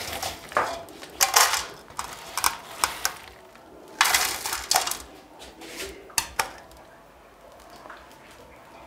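Dried omena, small Lake Victoria sardines, rattling and scraping against a metal basin as they are handled by hand, with clinks of the basin. It comes in a series of short bursts, the busiest about four seconds in, and goes quieter for the last two seconds.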